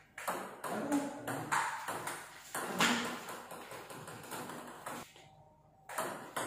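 Table tennis ball being hit back and forth, sharp hollow ticks of ball on paddle and table about twice a second at first, then sparser, with a brief pause near the end before play resumes.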